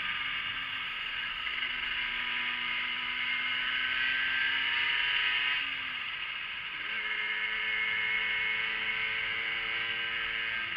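Yamaha 50cc motorcycle engine running at low speed, its note sinking slowly, dropping away about six seconds in, then picking up again at a steady, lower pitch, with wind and road noise over it.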